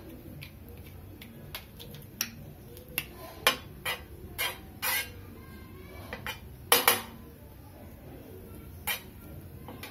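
Metal spoon clinking and scraping on a flat tawa griddle as butter is put on and spread around: about ten irregular sharp clinks and short scrapes, the loudest about seven seconds in.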